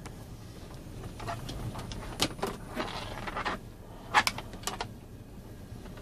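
A phone being handled close to its microphone: a few sharp clicks and a short rubbing scrape from fingers on the case, over a low steady rumble inside a car.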